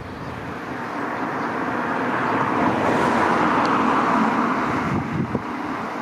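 A vehicle passing on a nearby road: a rushing noise that swells through the middle and fades toward the end.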